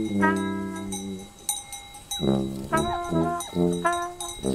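Jazz band music led by brass horns playing a run of held notes with short pauses between them.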